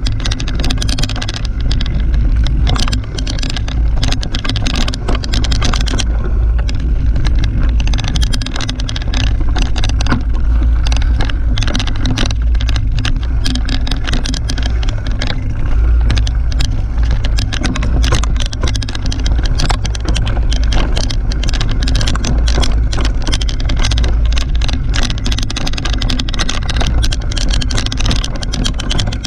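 Mountain bike riding fast down a dirt forest trail: constant rattling and knocking from the bike over the rough ground, over tyre noise and a heavy wind rumble on the action camera's microphone.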